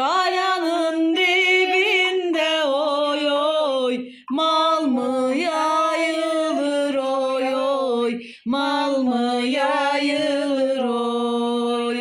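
A lone unaccompanied voice singing a Turkish folk song (türkü) in long, ornamented held notes. It pauses for breath twice and ends on a long steady note.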